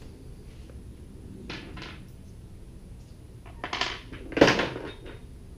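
Metal clinks and clanks as the jackplate adapter bracket and its bolts are handled against the jack plate: a couple of light clicks, then two louder clanks less than a second apart, the second the loudest.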